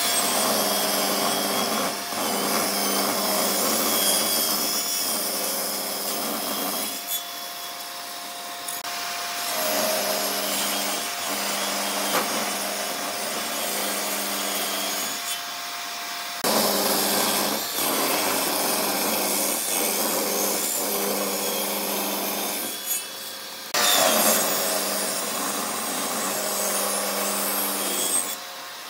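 Table saw running, its motor humming steadily while wooden boards are ripped lengthwise against the fence. The cutting noise swells in about four passes and drops back to the motor's hum in short gaps between them.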